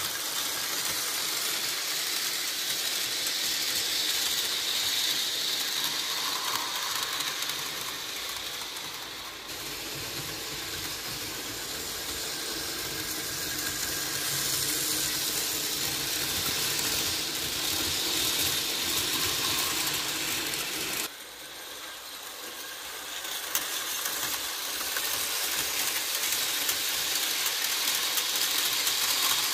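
Märklin HO-scale model trains running on their track: a steady mechanical whirr of the locomotive motor and gears with wheel and track noise. The level drops suddenly about two-thirds through, then builds again.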